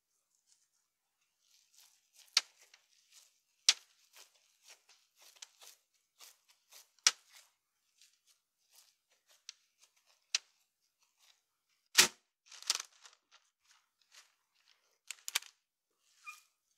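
Hands working with food and kitchen things: scattered sharp clicks and taps with crackly rustles at uneven intervals, the heaviest knock about twelve seconds in.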